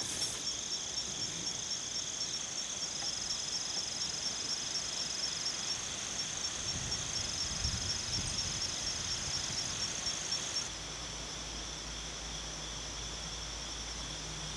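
Crickets or katydids trilling steadily in the vegetation, several high insect songs overlapping, one of them a rapid pulsing trill. About three-quarters of the way through, the highest part drops away and a low rumble comes in.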